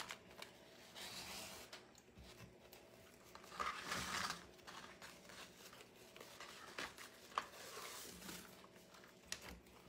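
Ribbon rustling and crinkling as bow loops are twisted and handled by hand. It gets louder about four seconds in as a length of ribbon is pulled off the spool, and there are a few light clicks later on.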